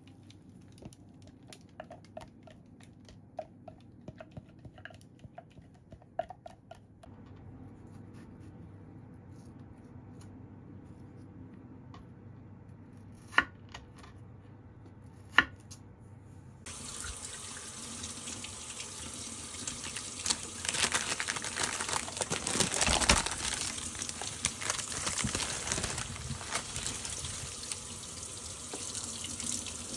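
Kitchen prep sounds: light clicks and taps, then two sharp knocks on a cutting board about halfway through. After that comes a steady rush of running water that starts abruptly and swells before easing a little.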